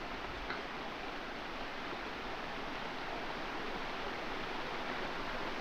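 Steady rushing of flowing water, a stream or river running over rocks, as an even hiss with no changes.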